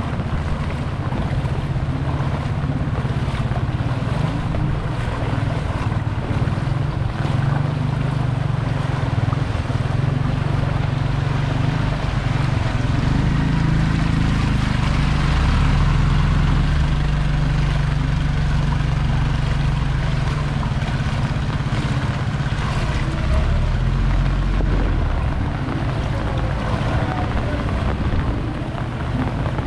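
Vehicles driving through floodwater: a steady engine rumble with water sloshing and splashing, swelling in the middle as a truck passes close by.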